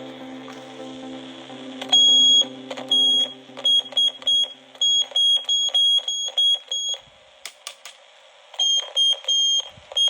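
Electronic toy gun sound effect: short, high-pitched beeps, each beginning with a click, fired in quick irregular runs, as from a trigger pulled again and again. Background music fades out early on under the beeps.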